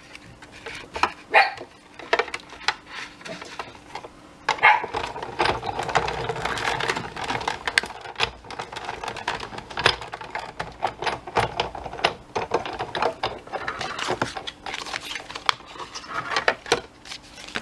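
Die-cutting machine pressing a cutting die through wallpaper: a stretch of grinding, rolling noise in the middle, with clicks and knocks of the plates and handling before and after.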